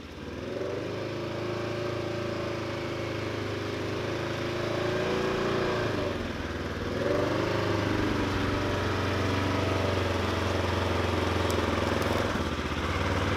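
Polaris UTV engine running under throttle as it drives down a muddy trail, getting louder as it comes closer. The engine note eases off briefly about six seconds in and again near the end, then picks back up.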